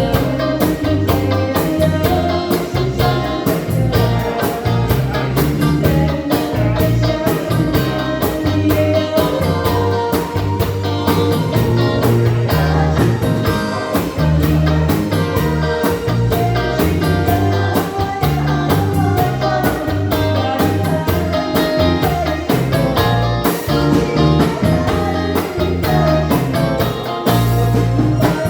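A pop song playing with a steady beat of drums and bass, guitar, and singing at times.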